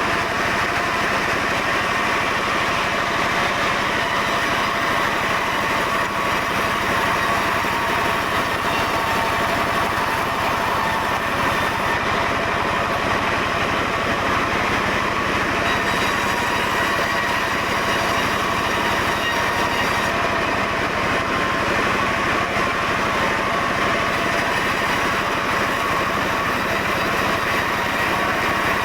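Sawmill machinery running steadily, a continuous engine-like drone with an even, unchanging pitch.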